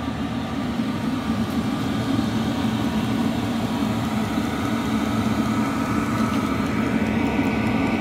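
A 12V 5 kW diesel air heater running steadily on high once combustion has started: its blower fan and burner make a constant low hum.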